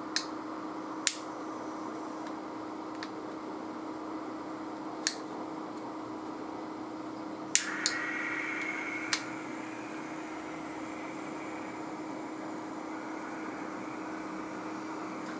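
Steady hum with a faint hiss, broken by several sharp clicks spaced a few seconds apart. A short hiss comes about halfway through, framed by a pair of clicks and a third about a second and a half later.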